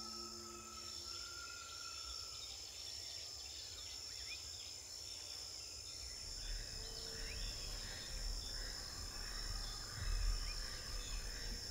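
Forest ambience: a steady high-pitched insect drone with scattered short bird chirps over it. A low rumble joins from about halfway through.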